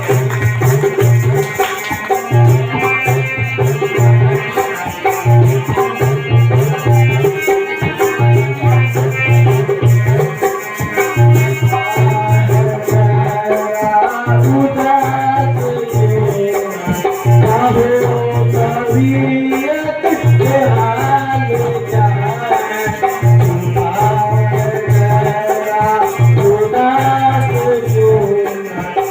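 Music with a steady low thudding beat and a fast rattling percussion, under a melody that moves up and down.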